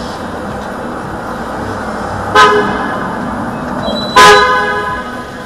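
Security van's horn honking twice, a short toot and then a longer blast about two seconds later: a warning to a taxi that pulled out into its path and nearly hit it. Heard from inside a car.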